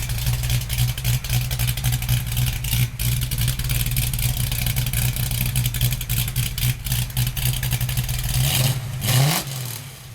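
American V8 muscle car exhaust idling with a steady, pulsing rumble, then a quick throttle blip about nine seconds in whose pitch rises sharply before the engine falls back.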